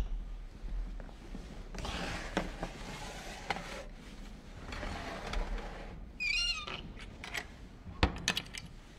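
Cloth rustling and light scraping of a dish on a wooden shelf inside a small wall hatch, a brief high squeak about six seconds in, then the small hatch door swung shut with a sharp knock and a few clicks about eight seconds in.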